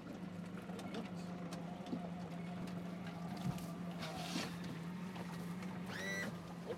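Small boat's motor idling with a steady low hum, under scattered knocks and clatter on the hull. About six seconds in there is a brief high-pitched cry.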